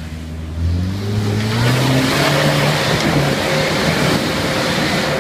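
Toyota 4x4's engine revving hard under load as it climbs a steep muddy slope, rising in pitch over the first two seconds and then held high. It has a loud rushing noise of tyres churning in mud. A rear wheel is not pulling, which onlookers put down to mud on the rim making it slip rather than to the rear locker.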